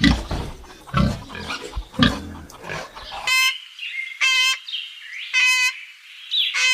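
Farm animal calls: a few low, rough grunts about once a second, then four short, high, clear calls about a second apart.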